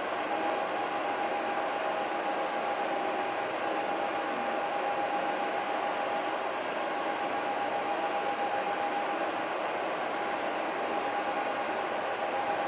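Steady hum of city street traffic heard from high above. A faint, steady mid-pitched whine runs through it.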